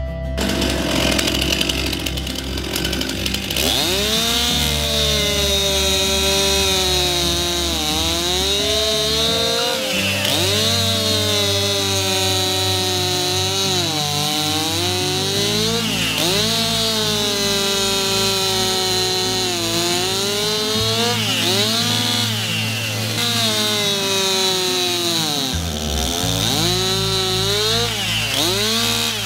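Stihl MS 261 C two-stroke chainsaw at full throttle cutting through a log with a factory-sharpened stock chain. The engine pitch repeatedly sags under load and rises again as the chain frees.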